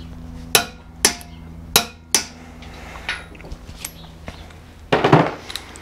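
Click-type torque wrench being set and used on a motorcycle swing arm pivot bolt: four sharp metallic clicks in the first two seconds, a few lighter ticks, then a louder rasping burst near the end as the bolt is brought to 85 foot-pounds.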